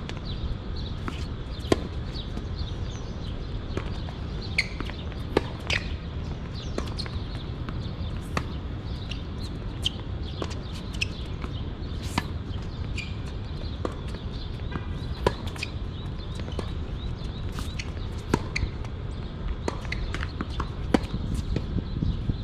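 Tennis ball being struck and bouncing: scattered sharp knocks a few seconds apart over a steady low rumble.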